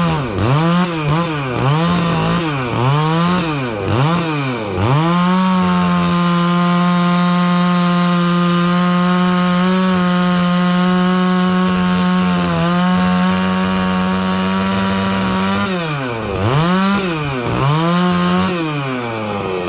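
Stihl 660 two-stroke chainsaw with a 36-inch bar rip-cutting dry larch at full throttle. Its engine pitch dips and recovers in quick repeated swoops for the first five seconds, runs steady for about ten seconds, then swoops again several times near the end.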